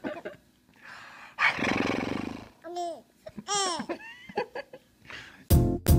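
A young baby squealing and cooing in short high-pitched bursts, with a breathy laugh about a second and a half in. Music with a steady beat starts near the end.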